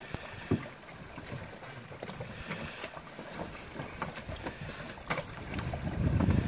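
A canoe being pulled over a beaver dam: scattered knocks and scrapes of the hull against the dam's sticks, with water moving around the wading men's legs. Wind rumbles on the microphone, growing louder near the end.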